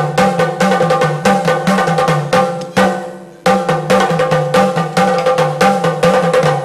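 Drum music: a fast rhythm of drum strokes with a ringing pitch, stopping briefly about three seconds in and then picking up again.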